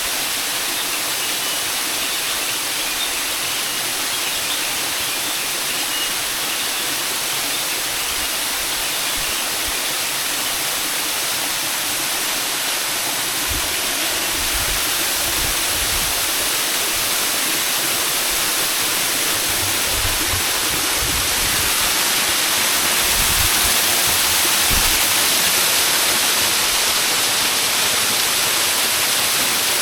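Waterfall in mountain forest: a steady rush of falling water that grows slightly louder about two-thirds of the way through, with a few short low rumbles in the middle.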